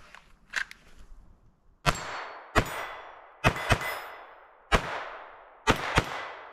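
A string of about seven gunshots over five seconds, some in quick pairs, each trailing off in a long echo, with the ringing clang of steel targets being hit.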